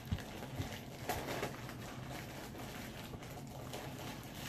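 Faint knocks and rustling of an opened package being handled in the first second or so, then mostly a steady low hum of room tone.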